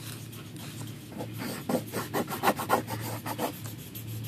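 Pencil scratching on paper in quick, irregular back-and-forth strokes, shading in a colouring-book picture.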